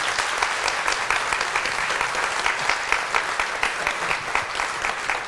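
Studio audience applauding, many hands clapping in a dense, steady patter.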